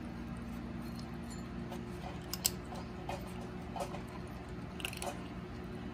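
Cats chewing dry kibble from a bowl: irregular small crunches and clicks, with a sharper click about two and a half seconds in.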